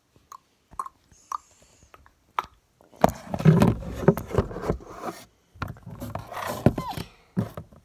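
Toy horse figurines tapped and knocked a few times, then a louder stretch of scraping and rubbing from about three seconds in as the toys are moved and a hand handles the phone over its microphone.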